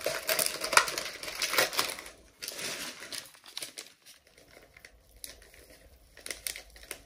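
Plastic food packaging crinkling and rustling as a self-heating instant noodle kit is unpacked and its sachets handled. The crinkling is dense for the first couple of seconds, then thins to a few scattered crackles.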